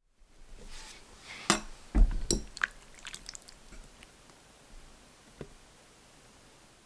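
A metal spoon scooping through a ceramic bowl of oyster rice cake soup: a few knocks and clinks against the bowl with wet, squishy sounds from the broth, most of them between about one and three seconds in.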